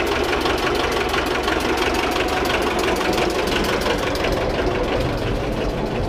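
Old two-cylinder marine diesel running steadily with a rapid, even knocking beat, just after a decompressor start while its oil pressure comes up.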